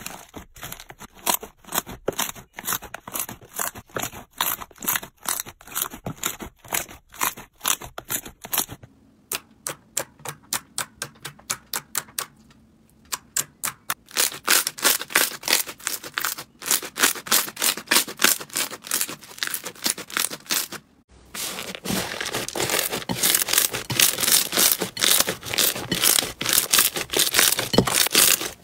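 Slime being squeezed and worked by hand, making rapid crackling and popping clicks. Several short clips follow one another with abrupt cuts about a third of the way in, around halfway and about three quarters of the way through.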